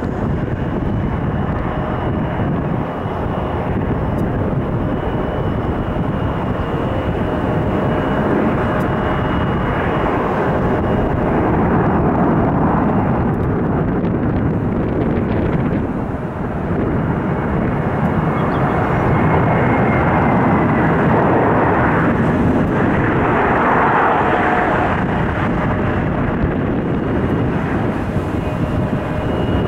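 Boeing 757-232 airliner with Pratt & Whitney PW2037 turbofans, touching down and rolling out on the runway. Its jet engines give a broad, steady roar with a thin steady whine on top, growing louder about two thirds of the way through.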